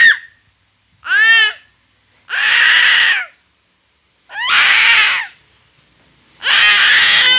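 A baby's high-pitched vocal outbursts: two short squeals, then three raspy, drawn-out screeches about a second long, roughly two seconds apart.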